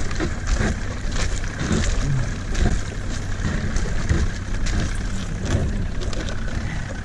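Boat motor running under load as the hull breaks through thin lake ice, with repeated sharp cracks and knocks of ice breaking and scraping against the hull.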